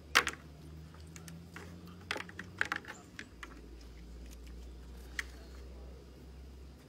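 Light clicks and taps of a puppy's paws and claws on a hard clear plastic platform as it climbs on, with one sharper click just after the start and a last tap about five seconds in.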